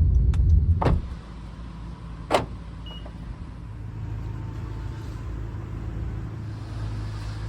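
Honda N-VAN heard from inside the cabin, its low road rumble dying away about a second in as the van slows to a stop on arrival. Two sharp clicks follow, then the engine hums steadily at idle.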